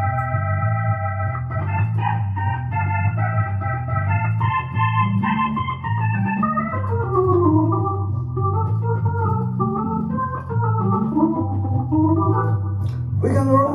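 Stage keyboard played with an organ sound: held and moving chords over a steadily repeating bass figure, with a sharp accent near the end.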